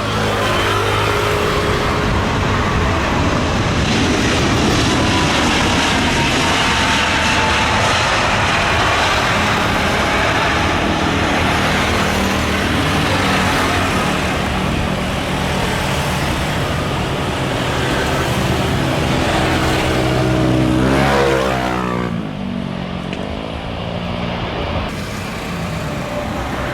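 Jet engines of an Airbus A320-214 landing and passing by: a loud, steady rush of jet noise with low rumble. About three-quarters of the way through, a sweeping, warbling change in tone comes as the aircraft goes past, then the noise eases somewhat.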